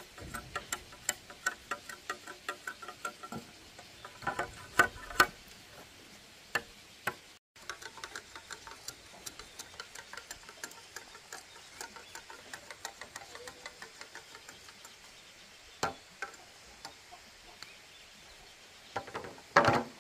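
Hand saw cutting bamboo in quick, even strokes, about four a second, with a few louder knocks of bamboo along the way.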